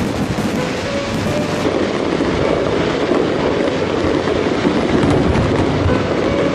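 Fireworks display going off in a dense, continuous barrage of booms and crackling.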